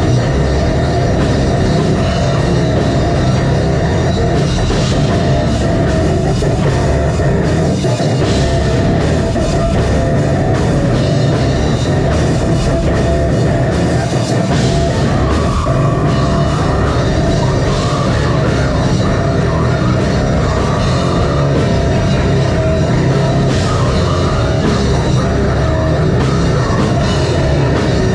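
Live heavy metal band playing loud and steady: distorted guitars, bass and a pounding drum kit.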